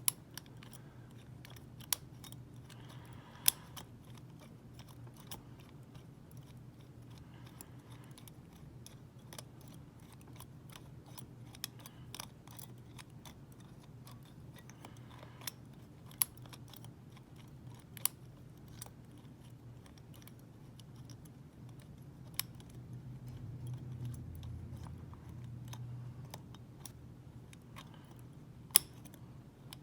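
Small sharp metal clicks and scrapes at irregular intervals as a pick wire and tension tool work the levers inside a WEP Secure 5 lever padlock. A steady low hum runs underneath.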